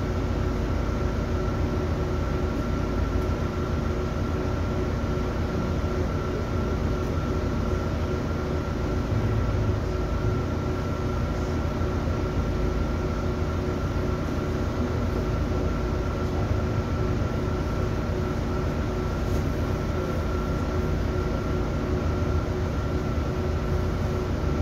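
Inside a city bus on the move: a steady low drone of engine and road noise, with a constant thin whine held at one pitch over it.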